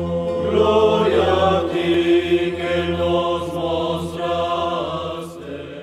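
Intro theme music of chant-like singing over a steady low drone, fading down near the end.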